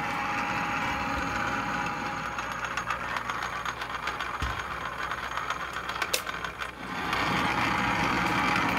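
Atlas 618 six-inch lathe running under power on a thread-cutting pass. The noise dips briefly about three-quarters of the way through, then comes back louder.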